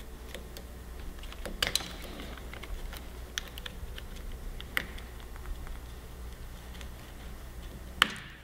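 Scattered small clicks and ticks of plastic and metal parts handled by hand: a Motion Pro Revolver 2 throttle housing being taken apart and its throttle cables unhooked on a motorcycle handlebar. A sharper, louder click comes near the end.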